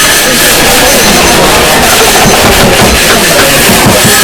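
Busy office ambience: overlapping background voices, with scattered knocks and clicks in the second half.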